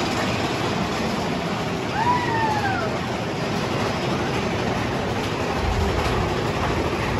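Mine-train roller coaster running along its track, heard from on board as a steady rattling rush of wheels and cars. About two seconds in comes one brief high squeal that falls in pitch, and a deeper rumble builds near the end.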